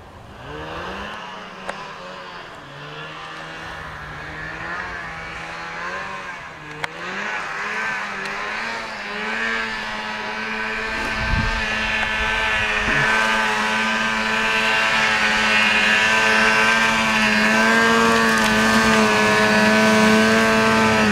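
Snowmobile engine pulling up a steep snowy hill. Its revs rise and fall for the first several seconds, then hold high and steady as it gets steadily louder, closing in.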